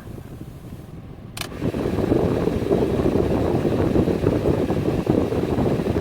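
A click, then a loud steady rush of air from the Toyota Yaris's air-conditioning blower through the vents, with another click near the end.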